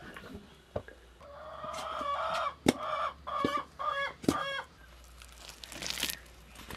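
A chicken calling, one long drawn-out note followed by several shorter ones, from about a second in to past the middle. Dull thuds of a wooden treadle pestle pounding rice dough in a stone mortar land under it, the loudest a little before halfway.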